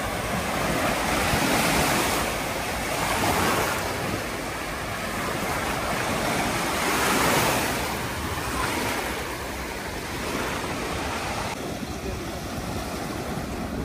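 Small sea waves washing up over a shingle beach and draining back, swelling and easing every few seconds. Near the end the sound changes to waves washing among shoreline rocks.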